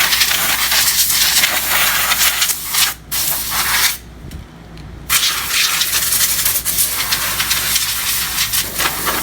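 Compressed air blowing dust off a laptop palm rest in three hissing bursts: a long one, a short one, then another long one.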